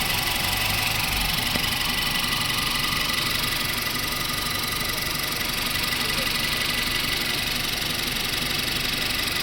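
Mahindra Thar BS6 petrol engine idling steadily.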